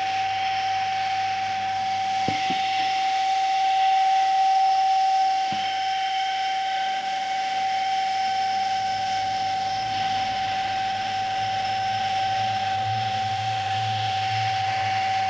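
Vacuum cleaner running steadily: a constant motor whine over a hiss of air, with two faint knocks in the first few seconds.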